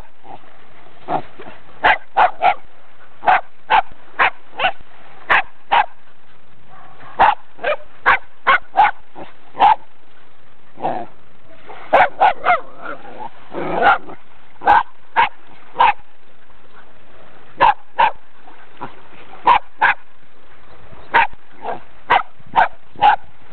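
Brazilian terrier (Fox Paulistinha) barking at a crab: dozens of short, sharp barks, often in quick runs of two or three with short pauses between.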